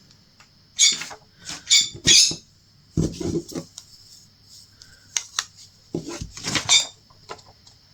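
Handling of a craft kit's pieces and packaging: several short bursts of rustling with a few light clicks and knocks.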